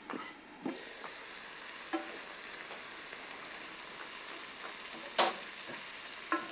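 Chopped tomatoes, peppers, onion and herbs sizzling in a frying pan and stirred with a wooden spoon: a steady frying hiss that grows louder a moment in as the lid comes off, with a few sharp knocks, the loudest about five seconds in.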